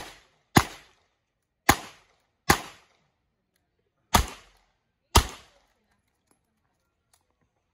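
Smith & Wesson 929 9mm revolver firing six shots in loose pairs over about five seconds, each a sharp crack with a short ringing tail.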